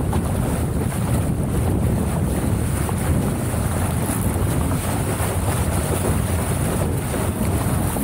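Strong wind buffeting the microphone, with water rushing along the hull of a small sailboat under way: a steady, mostly low rumble.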